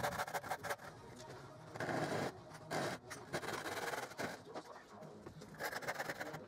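Handsaw cutting across a softwood trim board: a run of back-and-forth sawing strokes with short pauses between bursts.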